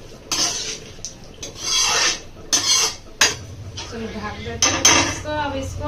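A metal spoon scraping and clinking against a cooking pot in several separate strokes as a thickening curry is stirred.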